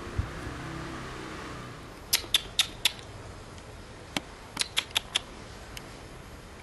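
Sharp mechanical clicks in two quick runs, four and then five, at about four to five a second, over a steady outdoor hiss, with one low thump just after the start.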